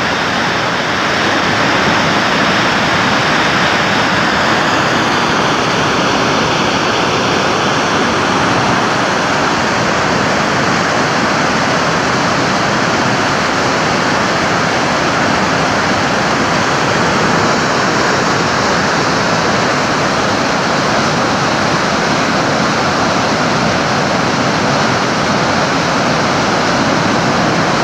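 Muddy floodwater from a flash flood plunging over a cliff into a canyon: a loud, steady rush of falling water.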